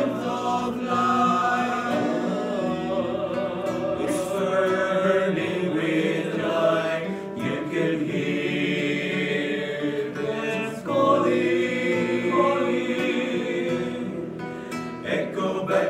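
A group of men singing a Marian hymn together, accompanied by a strummed acoustic guitar.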